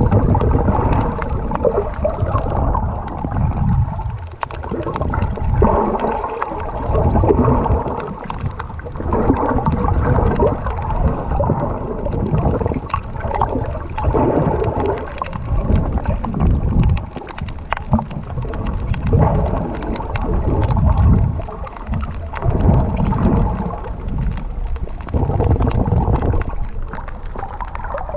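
Sea water sloshing and gurgling around a snorkeler's camera. It is muffled and comes in uneven surges.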